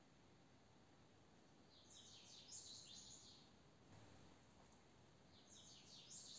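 Faint bird chirping over near silence: a quick run of high chirps about two seconds in, and another starting near the end.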